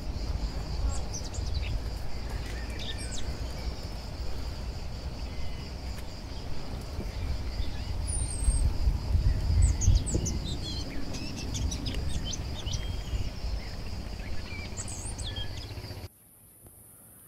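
Outdoor ambience of birds chirping in short, scattered calls over a steady high insect buzz, with a strong low rumble on the microphone. It all cuts off abruptly about a second before the end.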